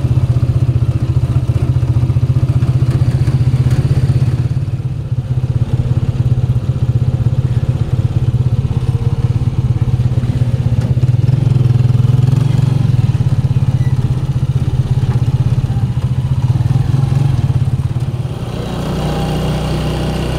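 Small motorcycle engine of a sidecar tricycle running under way, heard from right beside it in the sidecar, with a fast, even firing pulse. The note dips briefly about a quarter of the way in, and near the end it settles to a quieter, steadier running.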